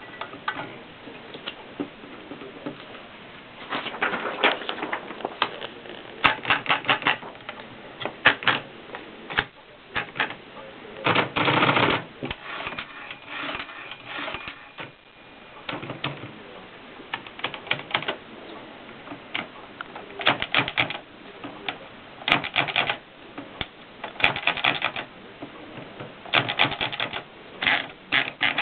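Olivetti Lettera DL manual typewriter being typed on: irregular bursts of key strikes separated by short pauses, with a longer, denser run of strikes about eleven seconds in.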